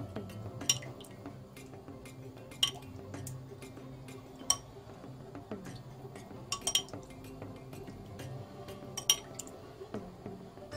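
A metal spoon clinking against a glass bowl and a metal baking tray while thin tomato sauce is spooned out, with sharp clinks every second or two.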